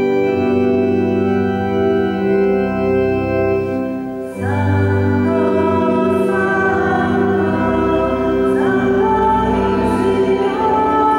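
Church organ playing held chords under voices singing a hymn. A new sung phrase comes in more strongly about four seconds in and again at about eight and a half seconds.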